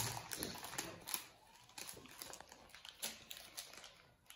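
Thin plastic wrapping crinkling faintly in small hands, in short irregular rustles and ticks, as toy pieces are pulled from their bags.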